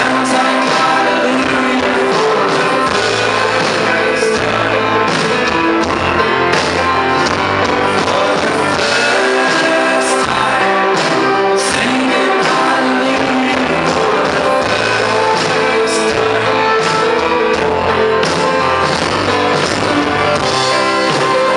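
Indie-folk band playing live with singing, a steady drum beat and sustained band chords, heard as a concert recording from the audience.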